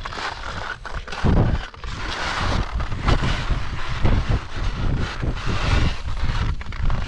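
Skis sliding and scraping over snow on a descent, an uneven hiss that swells and fades with each turn, over a low rumble of wind buffeting the camera microphone.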